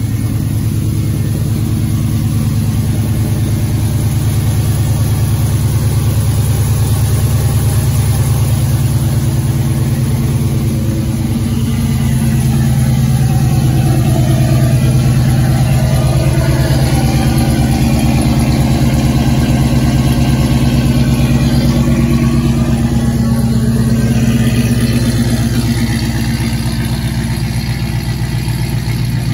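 2012 Chevrolet Silverado's V8 idling steadily just after its first startup on new long-tube headers and a catless off-road Y-pipe. The exhaust note grows a little louder about twelve seconds in.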